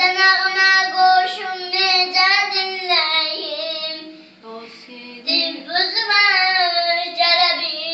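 A four-year-old girl singing, holding long drawn-out notes, with a brief pause for breath about halfway through.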